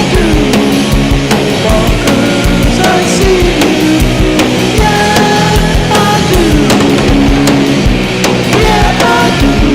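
Instrumental rock music with a steady drum beat, bass and guitar, and sliding lead notes.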